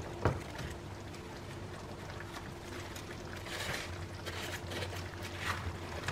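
Pieces of battered fried chicken sliding off a plate into a pan of sauce and vegetables, pushed along with a wooden spatula: a knock about a quarter second in, then scattered soft clatters and scrapes. A steady low hum runs underneath.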